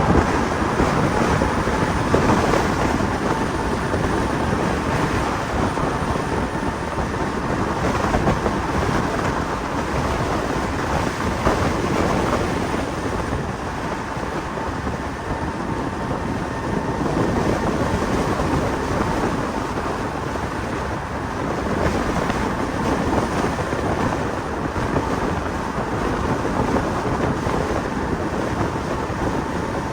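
Wind buffeting the microphone while riding a 5000 W electric bike at speed, a steady rushing noise, with a faint steady motor whine in the first part.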